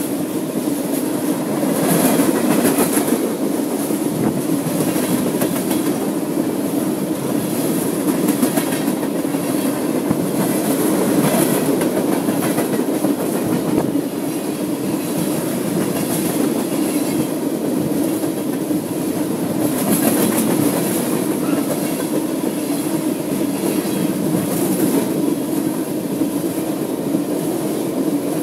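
Freight train of oil tank cars rolling steadily past at close range: a continuous rumble of wheels on rail, with clusters of wheel clacks over the rail joints every few seconds.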